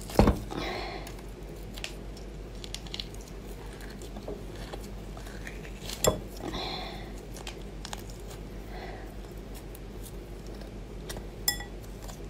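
Skin being peeled by hand off a large piece of shellfish flesh, soft and squishy, with three sharp clicks of dishes or utensils: just after the start, in the middle, and near the end.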